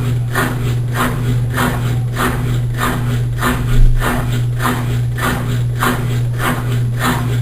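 Consul Maré Super 10 kg top-loading washing machine agitating a load: a steady motor hum with a swish of water and clothes about twice a second, and one louder thump about four seconds in.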